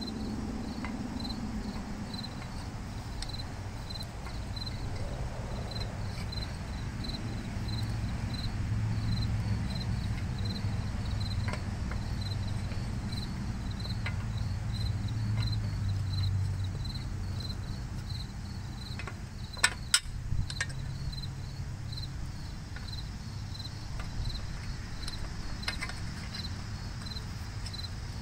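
Steady, evenly spaced high chirps from an insect, with a low hum that swells and fades in the first half. About two-thirds of the way through come two sharp metal clinks a fraction of a second apart as the steel battery tray of a Gravely walk-behind tractor is worked onto its transmission housing.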